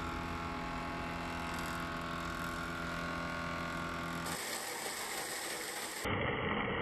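Wood planer machine running, a steady motor and cutter-block hum. About four seconds in the sound cuts to other woodworking machinery running.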